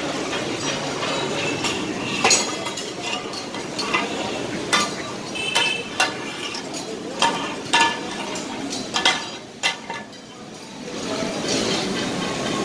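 Two flat steel kata-kat blades scraping and knocking on a large flat griddle as offal is pushed around, with sharp metallic clanks at irregular moments over a steady hiss.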